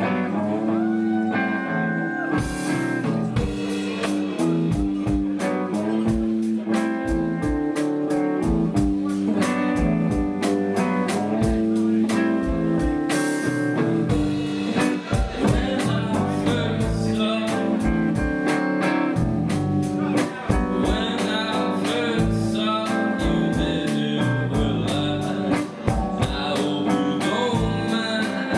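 Band music: guitar and a drum kit playing a steady beat, with singing. The drums come in about two seconds in.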